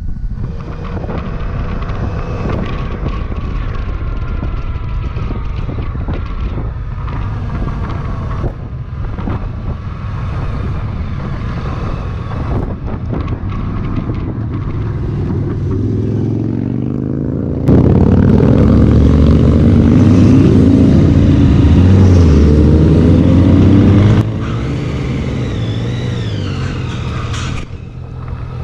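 A motorcycle engine runs at low speed over wind noise. About two-thirds through, a much louder, deeper engine sound starts suddenly, lasts about six seconds and stops just as suddenly.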